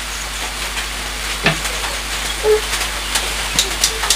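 Steady hiss of rain falling, with a few light clicks from the equalizer unit being handled, most of them near the end.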